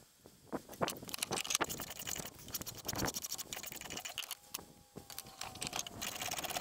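Small hand-held blade shaving a curved wooden table leg in a run of short, quick scraping strokes.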